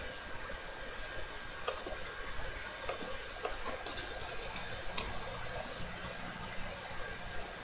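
Computer keyboard and mouse clicks: a cluster of sharp clicks between about four and six seconds in, the loudest near five seconds, over a steady hiss.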